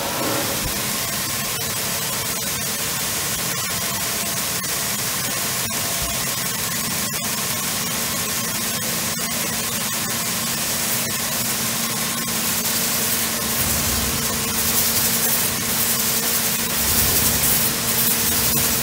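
Abrasive belt grinders running with a steady machine hum and hiss. A robot arm presses a metal workpiece against a belt, and the grinding hiss grows louder and rougher over the last few seconds.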